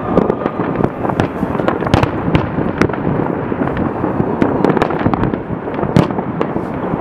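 Many fireworks going off at once: aerial shells and rockets bursting among a continuous crackle of pops and bangs, with the sharpest reports about two seconds in and near the end.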